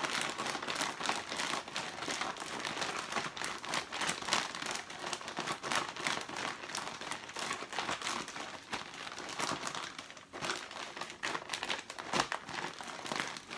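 Plastic bag crinkling and rustling continuously as deviled egg filling is squished and kneaded inside it by hand, in quick, irregular crackles.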